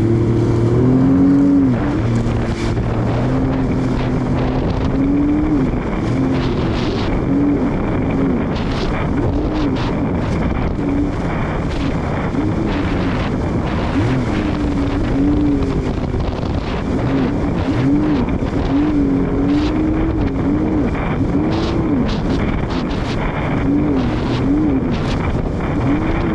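Jet ski engine running hard, its pitch rising and falling over and over as the craft rides over the water, with wind buffeting the microphone and short sharp hits throughout.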